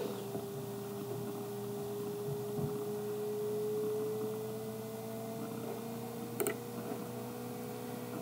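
A steady tone that slowly rises in pitch, over a low electrical hum, with a single sharp click about six and a half seconds in.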